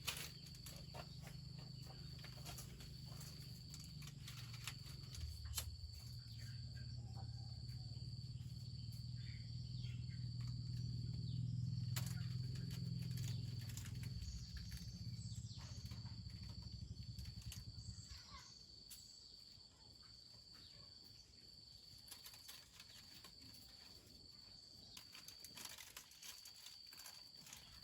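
Faint outdoor ambience: an insect trilling steadily in a high, even pulse, over a low rumble that fades out about two-thirds of the way through, with scattered light clicks.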